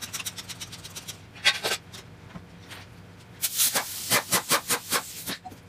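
Pneumatic impact wrench hammering the front wheel's lug nuts loose, with air hissing. It comes in short hissing bursts: one about one and a half seconds in, then a quick run of about eight pulses near the end.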